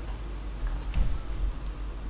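Faint clicks and handling noise as fingers press and route internal wires into the plastic base of an ASUS F541U laptop, with a soft knock about halfway through, over a steady low hum.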